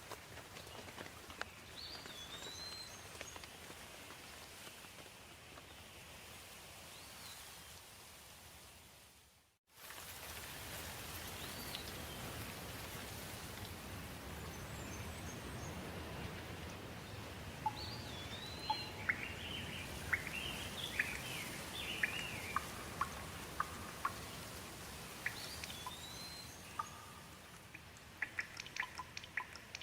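Steady rain with birds chirping over it. A little under ten seconds in, the sound fades out and comes straight back. From about halfway on, many sharp drips or drop ticks land over the rain, coming thicker near the end.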